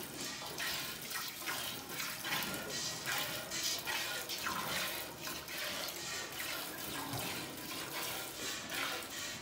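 Cow being milked by hand: jets of milk squirting into a steel pot in quick repeated hisses, about one every half-second to second as the hands pull the teats in turn.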